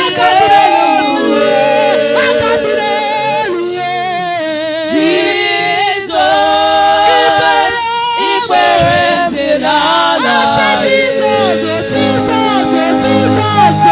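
Voices singing a gospel worship song together, holding long notes with vibrato.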